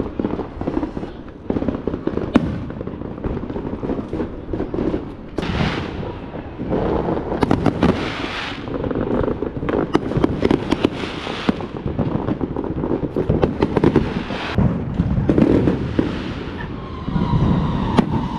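Aerial fireworks going off in quick succession: a continuous rumble of booms with many sharp crackling reports. Near the end a steady high tone comes in over the bangs.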